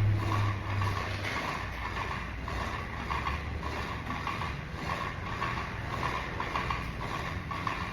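Rapid, irregular mechanical clicking over a steady background noise, with a low hum at the start that fades out.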